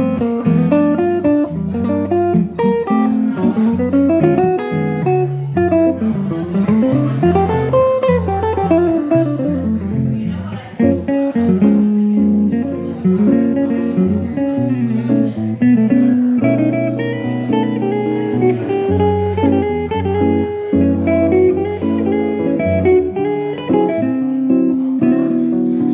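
Hollow-body archtop electric guitar played through an amplifier, fingerstyle, with bass notes under chords and melody. Around the middle a quick run climbs and falls back down.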